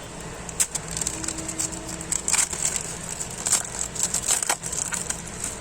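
Trading-card packet wrappers being torn open and crinkled: irregular crackling with scattered sharp snaps.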